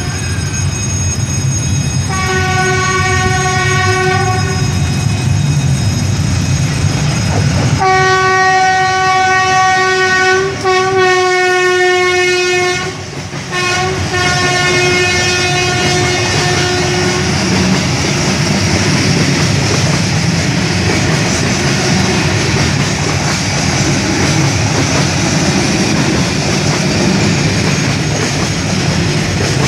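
Vietnam Railways D10H diesel-hydraulic locomotive sounding its horn as it reaches a level crossing, as a warning: a short blast about two seconds in, then a long blast from about eight seconds in that lasts roughly nine seconds with brief breaks. After the horn stops, the freight wagons roll past with a steady rumble of wheels on rail.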